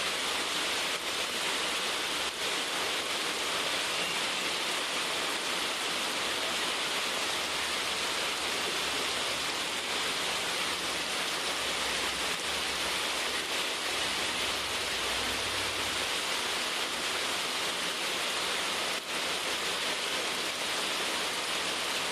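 Rain falling steadily: a dense, even hiss with no let-up.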